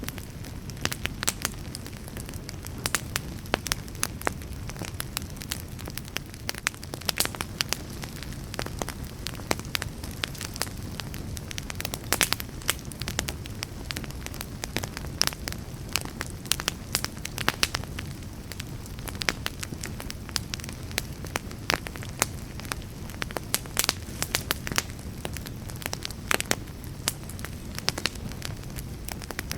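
Wood fire burning, with frequent irregular crackles and pops over a low steady rumble of the flames.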